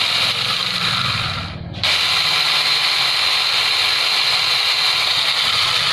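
Bull BL504 4-inch mini cordless chainsaw with a brushed motor running unloaded, chain spinning with a steady high whine; it cuts out briefly about a second and a half in and starts again.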